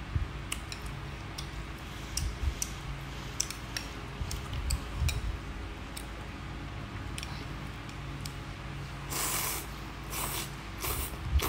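Close-miked eating of bún bò Huế rice noodles: wet chewing with small sharp mouth clicks, then a run of loud noodle slurps starting about nine seconds in. A low steady hum sits underneath.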